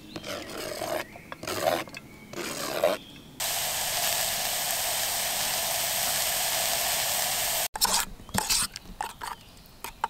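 Irregular scraping and rustling for the first three seconds, then a steady sizzle: chopped onions frying without oil in a metal camping pot over a small stove fire. The sizzle cuts off suddenly near eight seconds, and scattered scraping follows.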